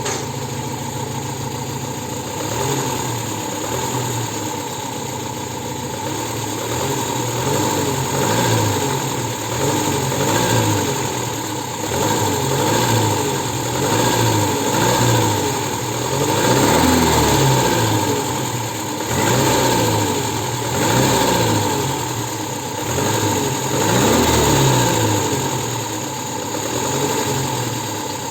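Engine idling, then revved up and let fall again and again at low revs, roughly every two seconds. It has a knock in the third cylinder that shows at low revs as the engine speed changes.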